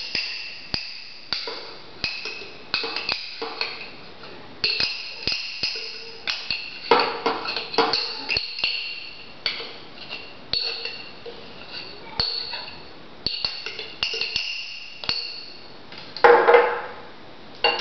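A spoon repeatedly tapping and scraping against a small metal measuring cup as thick tahini is scooped out. Each tap rings briefly, about one to two taps a second, with a louder clatter near the end.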